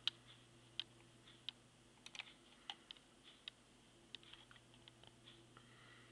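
Faint, irregular tapping of computer keys: about fifteen sharp clicks spread unevenly, over a low steady hum.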